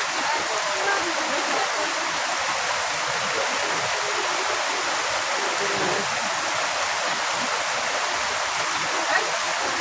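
Steady rain, an even, unbroken wash of falling water.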